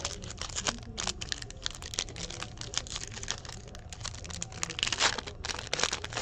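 Foil wrapper of a 2017 Donruss Optic football card pack being torn open and crinkled by hand: a quick, irregular run of crackles and rustles, busiest about five seconds in.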